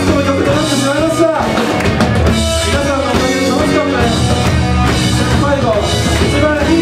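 Live rock band playing loud and steadily: electric guitars, bass guitar and drum kit, with a singer's voice over them.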